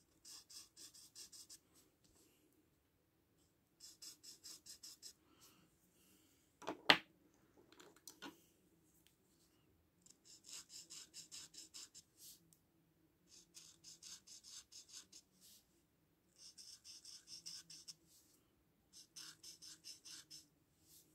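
Felt-tip marker scratching on paper as small oval dots are filled in: short runs of quick back-and-forth strokes, about five a second, coming in six groups with pauses between them. One sharp knock about seven seconds in is the loudest sound, with a smaller one a second later.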